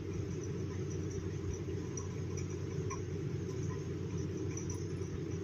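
Steady low background hum with no distinct event.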